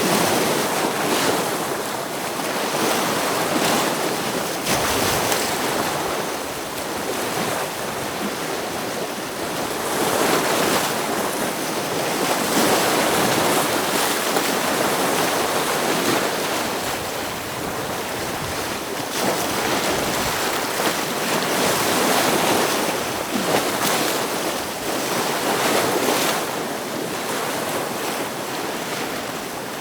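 Ocean waves breaking against rocks, a continuous rush of surf that swells and eases every few seconds.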